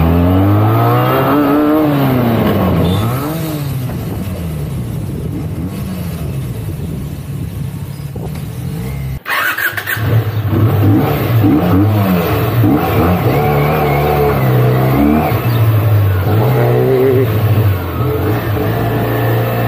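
Benelli 302S motorcycle's 300 cc parallel-twin engine running through its stock exhaust, revving up and down again and again. About nine seconds in the sound breaks off abruptly with a click, then the engine carries on with the pitch still rising and falling.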